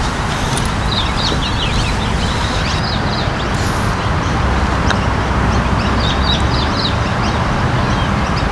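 Wind rumbling over a clip-on microphone, with small birds chirping in two short bouts, and a single light click about five seconds in as the putter strikes the ball.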